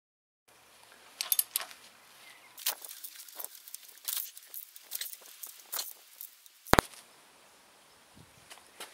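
Irregular metallic clicks and clinks of a wrench on the crankshaft pulley bolt as the engine is rotated by hand, with one sharp, louder click near the end.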